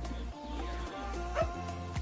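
Background music with a steady drum beat and held bass notes.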